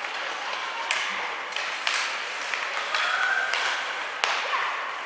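Ice hockey play in an arena: several sharp clacks of sticks and puck over a background of voices.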